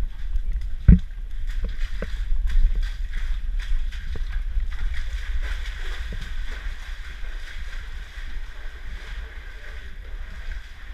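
Shallow seawater sloshing and lapping among large boulders, over a steady low rumble. A single loud thump comes about a second in, with a few lighter knocks after it.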